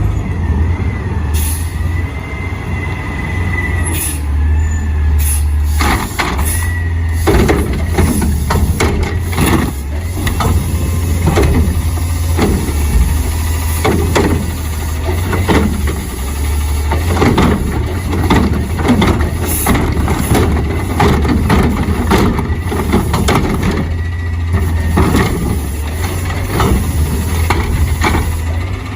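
A muddy toy garbage truck being washed: a steady low hum with irregular hissing and clattering strokes that thicken from about six seconds in.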